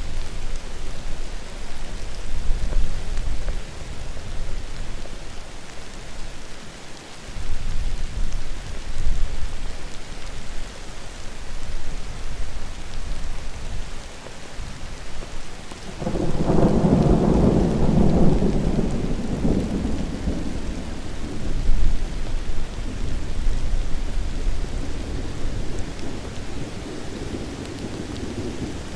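Thunder rumbling over steady rain. About halfway through a loud clap of thunder breaks suddenly and rolls away slowly over several seconds, with the hiss of rain underneath.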